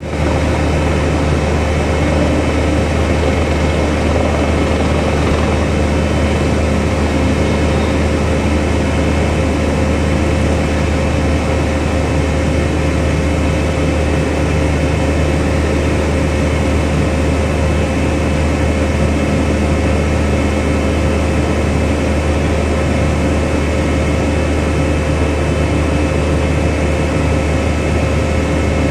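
A ship's engines and machinery running with a steady, loud low drone and a constant hum layered over it.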